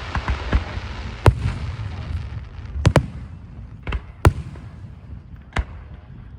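Aerial fireworks bursting overhead: a series of sharp bangs about a second apart, some in quick pairs, with a low rumble between them.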